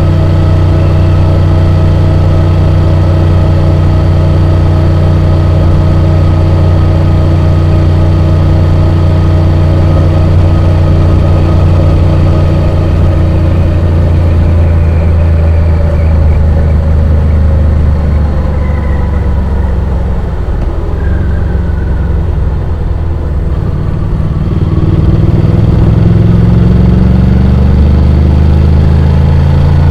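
Honda X-ADV 750's parallel-twin engine running under way, heard from on board. About two-thirds through its pitch falls and it goes quieter as the bike slows, then the pitch rises again near the end as it picks up speed.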